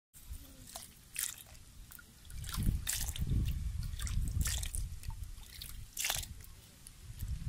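Small mola fish squirming in a plastic bucket: scattered wet clicks and slaps, over a low rumble that grows about two seconds in.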